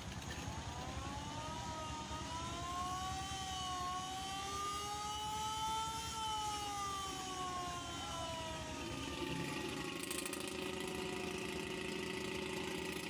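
Engine running with a steady throb, its pitch rising slowly for several seconds and then falling back. About nine or ten seconds in it settles into a steady lower note.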